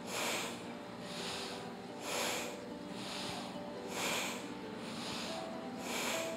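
A woman breathing strongly in and out through the nose in a steady rhythm, about one breath a second, paced to seated spinal flexes. Soft background music underneath.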